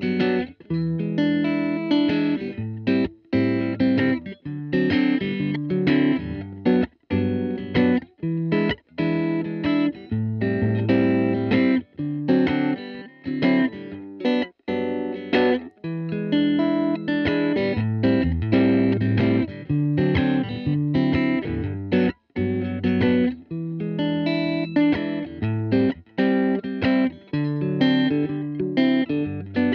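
Electric guitar played through a Poison Noises Roscoe six-band EQ pedal, short riffs repeated with brief stops between them, while the pedal's low bands are boosted or cut: first Boom around 100 Hz, then Blast around 200 Hz.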